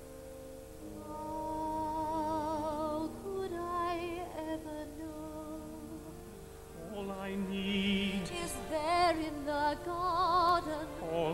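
Musical-theatre singing with wide vibrato over a soft sustained accompaniment, in two phrases: one starting about a second in, and a louder one starting about seven seconds in.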